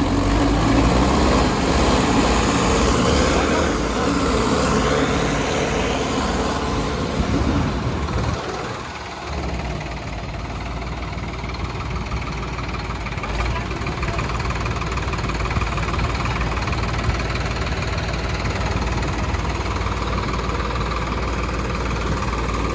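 Tractor diesel engine running, louder through the first several seconds. It dips briefly about nine seconds in, then runs on steadily.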